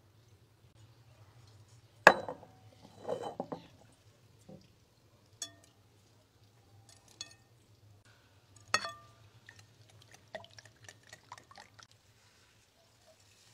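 Wire whisk and utensils clinking against a glass mixing bowl of raw egg. There are a few sharp, ringing glass clinks, the loudest about two seconds in and another near nine seconds, then a run of quick light taps near the end.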